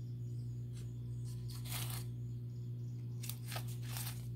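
Several short rustling scrapes of hand-handling noise, a few close together near the end, over a steady low hum.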